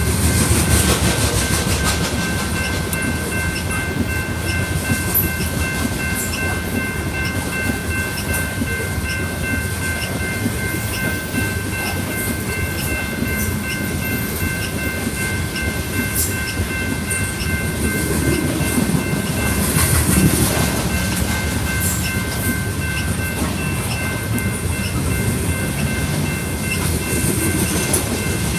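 Loaded coal train rolling past: a constant rumble of steel wheels on rail, with a steady run of clicks as the wheels pass over rail joints and a faint high ringing held throughout.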